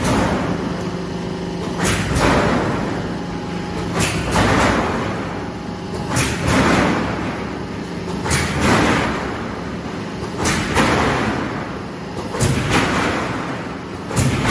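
Silo corrugated sheet roll forming machine running. A steady low hum sits under a sharp clank about every two seconds, and each clank is followed by a short rushing swell.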